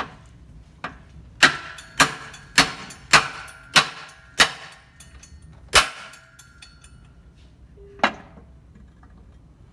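Hammer striking metal: a quick run of about six ringing blows a little over half a second apart, then two more spaced out, as part of replacing the machine's main drive shaft bearing.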